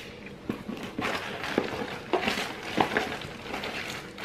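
Rustling and crinkling of plastic snack wrappers and cardboard as a hand rummages inside a snack subscription box, with several sharp crackles.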